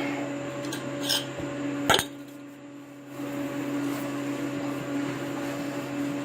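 A steady low hum, with a light click about a second in and a sharper knock just before two seconds, like tools or parts being handled on the mower.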